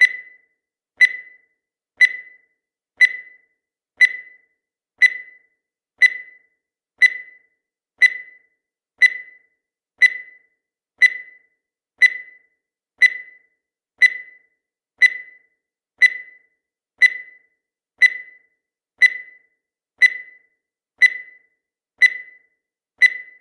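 Countdown timer's sound effect: one short, high-pitched beep every second, each dying away quickly.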